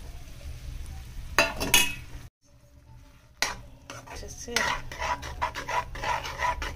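Metal spoon stirring and scraping beaten eggs in a frying pan, with quick irregular clinks against the pan over a light sizzle. There is a clatter about a second and a half in, then about a second of near silence before the stirring starts.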